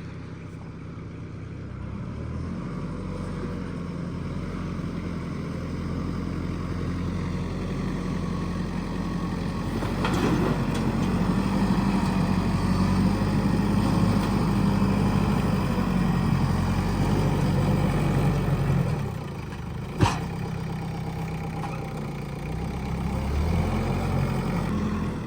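Kioti tractor's diesel engine running steadily under load, growing louder over the first ten seconds, easing off briefly, then picking up again. A single sharp knock comes about twenty seconds in.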